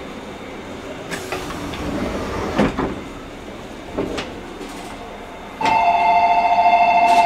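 Quiet standing-train ambience in a 185-series car's vestibule, with a few knocks. About five and a half seconds in, a loud, steady, warbling electronic departure signal starts ringing on the platform, the sign that the train is about to leave.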